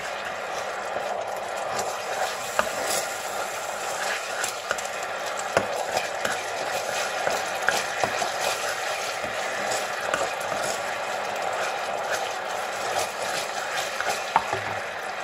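Coconut-cream panang curry sauce sizzling and bubbling in a frying pan as it is stirred with a plastic spatula, with scattered clicks and scrapes of the spatula against the pan.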